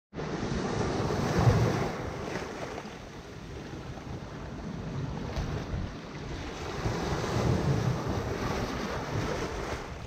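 Mediterranean Sea surf: small waves washing in over shallow sand and against rocks, swelling and ebbing, with the strongest surge about one and a half seconds in. Wind rumbles on the microphone underneath.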